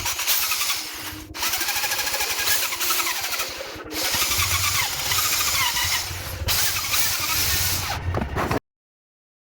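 Power drill spinning an exhaust valve against its cylinder-head seat with coarse valve-lapping compound, a whirring grind with a wavering whine, run in four stretches of about two and a half seconds with brief let-offs between them, then cut off sharply. The valve is being lapped to clean up a seat that contacts poorly.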